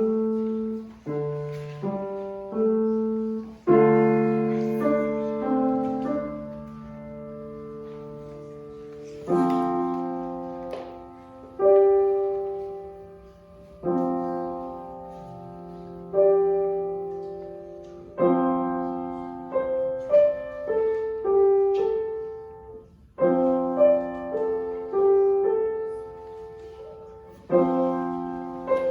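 Solo piano playing a slow, quiet student piece: chords and single notes struck and left to ring and fade, with short pauses between phrases.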